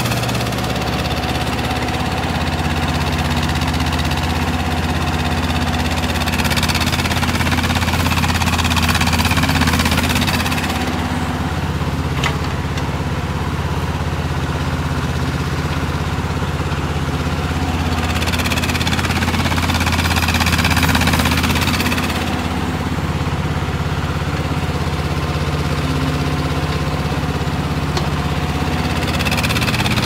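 Mini excavator's diesel engine running steadily, its noise swelling and easing in stretches as the machine digs.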